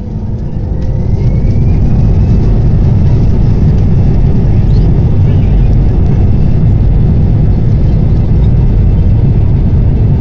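Airbus A320 jet engines spooling up to high thrust, heard from the passenger cabin: a faint rising whine and a loud low rumble that builds over the first second or so, then holds steady.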